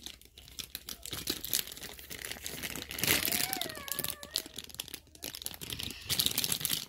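Shiny plastic toy wrapper crinkling and rustling as it is pulled and torn open by hand. A brief vocal sound comes through about three seconds in.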